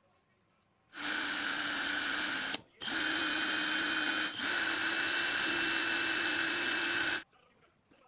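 Electric drill with a thin bit drilling a small hole into a board at a steady speed. It starts about a second in, stops briefly about two and a half seconds in, then runs on steadily until it stops shortly before the end.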